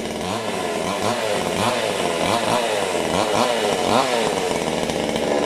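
Oxford two-stroke gasoline chainsaw running and being revved repeatedly, its engine pitch rising and falling about twice a second as the throttle is blipped. It dies away at the end.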